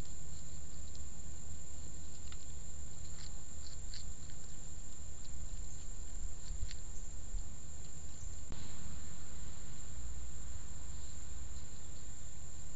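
Outdoor trail-camera ambience: a steady low hum under a continuous high insect drone, with a few faint clicks in the first half and a change in the background hiss about 8.5 seconds in.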